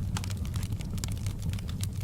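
Wood fire crackling, with frequent sharp irregular pops and snaps over a steady low rumble of the burning fire.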